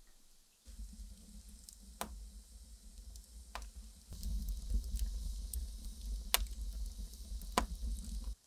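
Wood fire burning in a masonry stove's firebox: a steady low rumble and hiss with sharp crackles and pops every second or so, getting louder about four seconds in.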